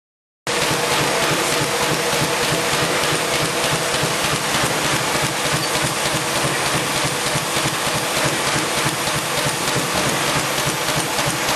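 Pile driver and its IBIS Smart-binder power unit running steadily, a loud machine sound with a fast, even rattle. It starts abruptly about half a second in.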